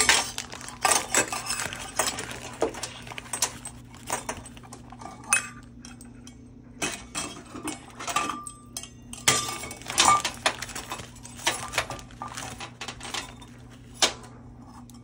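Metal measuring spoon and cup clinking and scraping in irregular sharp clicks as sugar is scooped from a zip-lock bag and added to a pot of broth.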